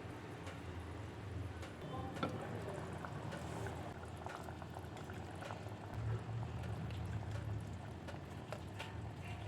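Fish kuzhambu, a tamarind-based curry, bubbling steadily in a pan on the stove, with scattered small pops.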